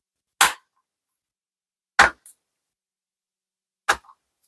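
Three short, sharp clicks about a second and a half apart, with dead silence between them.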